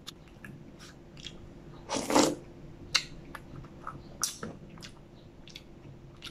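Close-up eating sounds: a plastic spoon scraping and clicking inside a paper McFlurry cup while ice cream is scooped, with mouth and chewing sounds. The loudest is a short scrape about two seconds in.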